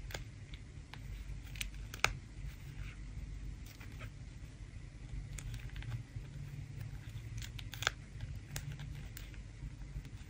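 Faint, scattered light clicks of knitting needles and a crochet hook as the stitches from four needles are caught and bound off together, over a low steady hum.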